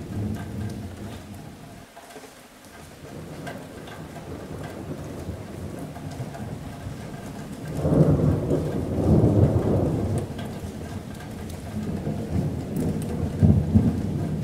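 Rain falling steadily on a metal roof with rolling thunder. The thunder rumbles low and swells loudest about eight seconds in, then again near the end.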